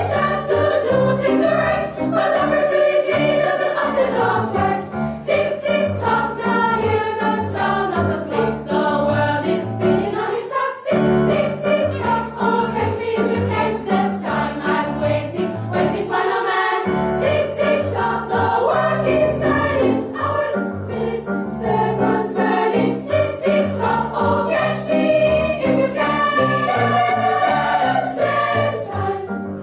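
A school choir singing a song, several voice parts in harmony over sustained low notes.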